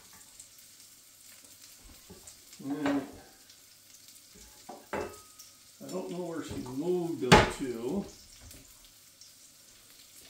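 Ground meat frying in bacon fat in a skillet over a gas flame, a faint steady sizzle. A voice sounds twice in the background, and a sharp knock comes about seven seconds in.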